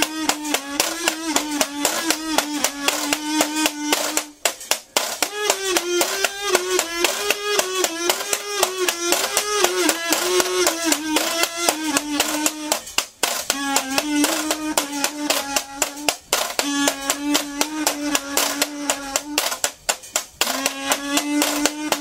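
Kazoo buzzing an improvised line around one held pitch, wavering in places and breaking off briefly four times, over a fast, steady rhythm of washboard scrapes and taps.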